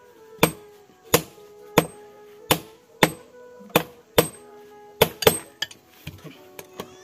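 Hand forging: a long-handled hammer striking a blade held with tongs on a small anvil. About nine heavy blows come at a steady pace of roughly one every 0.7 seconds, each with a brief metallic ring, followed by a few lighter taps near the end. The blade is being hammered into a sickle shape.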